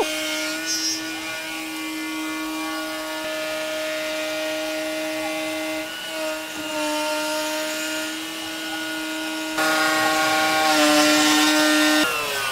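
Stepcraft CNC router's spindle whining at a steady pitch as its bit cuts walnut, with a hiss of cutting under it. The cutting gets louder about ten seconds in, and the whine stops just before the end.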